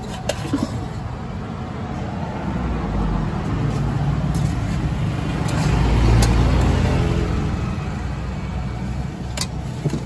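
A motor vehicle passing on the road, its engine rumble swelling to a peak about six seconds in and then fading. A few sharp clinks of a serving spoon against a steel pot come through it.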